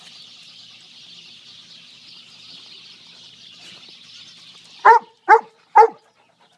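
A dog barks three times in quick succession near the end, short sharp barks about half a second apart.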